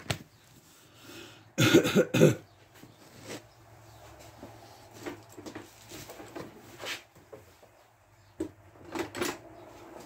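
A man coughing in a short fit of about three coughs some two seconds in, then scattered light knocks and rattles of things being handled, with a couple of sharper knocks near the end.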